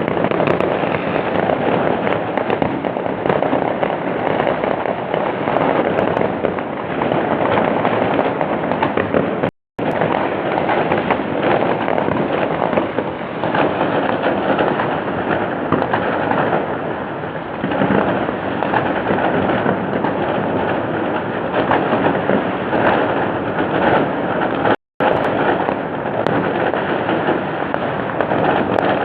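Dense, continuous barrage of fireworks bursting and crackling, recorded on an old phone so the sound lacks its top end. The sound drops out completely for a split second twice.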